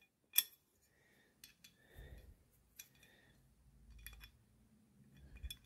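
Faint clicks and light metal taps of machined aluminium fittings being handled and fitted onto a scraper plate, with one sharper click just under half a second in.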